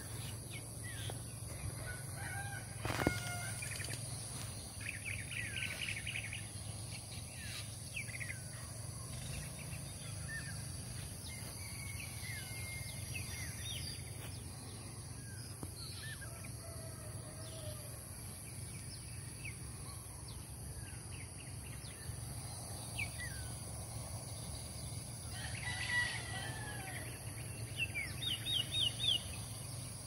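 Birds chirping and calling: scattered short whistled notes and quick trills, with a sharp click about three seconds in and a louder flurry of calls near the end. A steady high hiss and a low hum sit under the calls.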